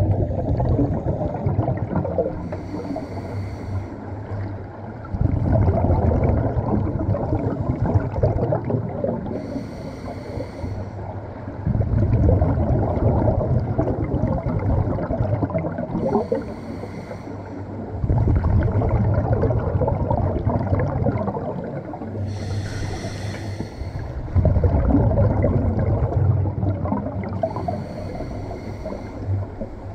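Scuba diver breathing through a regulator underwater: a short hiss on each inhale, then a longer rumble of exhaled bubbles, repeating about every six seconds for some five breaths.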